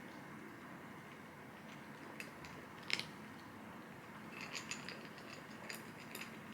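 A few light, irregular clicks and taps over steady room noise, the sharpest about three seconds in and a quick cluster of them a little later.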